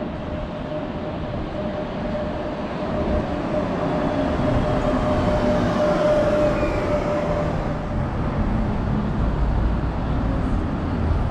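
Double-decker bus driving past close by, a steady whine over its running and tyre noise swelling to a peak about six seconds in and then easing as it moves away. A car follows past near the end.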